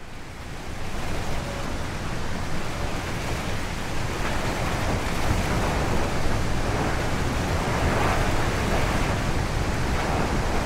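Wind sound effect: a steady rushing noise that swells up over the first second or two, then holds even.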